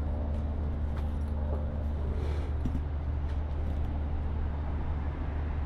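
Steady low rumble of background road traffic, with a few faint clicks.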